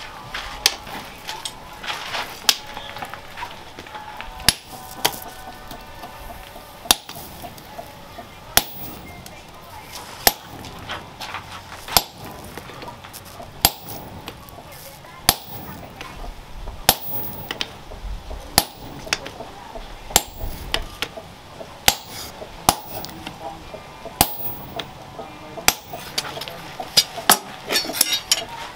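Hammer blows on a red-hot machete blade on a steel post anvil, forging the blade. They come steadily about every second and a half to two seconds, with a quicker run of blows near the end.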